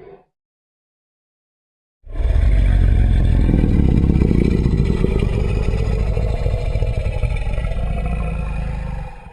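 A fictional dinosaur's deep, rough, rumbling roar, edited together from layered animal and monster roars, starting about two seconds in after a short silence and held for about seven seconds before cutting off abruptly.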